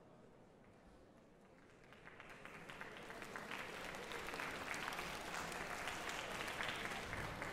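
Audience applauding in a concert hall. The applause starts about two seconds in and swells to a steady clapping.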